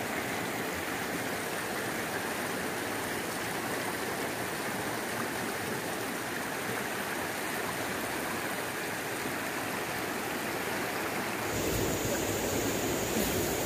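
Rocky river flowing over and around boulders: a steady rush of water, which grows a little louder and fuller near the end.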